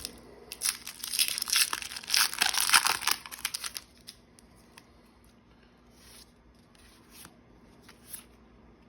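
A Pokémon trading card booster pack's foil wrapper being torn open, crinkling loudly for about three seconds. After that come a few faint rustles as the cards are handled.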